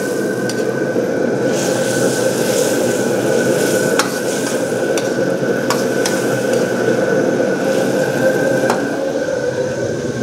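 Noodles, squid and vegetables sizzling in a steel wok while they are stir-fried, a steady dense hiss, with a few sharp clinks of the metal ladle against the wok.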